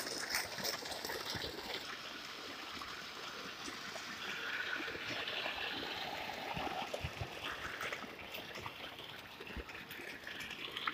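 Irrigation water pouring from a pump's outlet pipe and running down a field channel: a steady watery rush and trickle.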